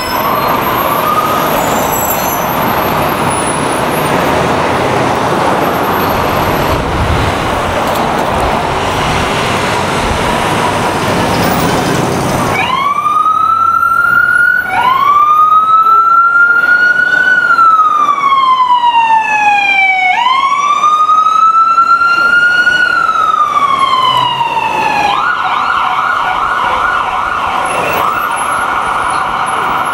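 Street traffic noise for about twelve seconds, then an emergency vehicle's siren wails, rising and falling in slow sweeps. Near the end it switches to a fast warble.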